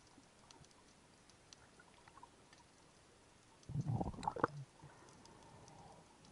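Underwater sound: faint scattered clicking crackle, broken a little past the middle by a gurgle of water and bubbles about a second long.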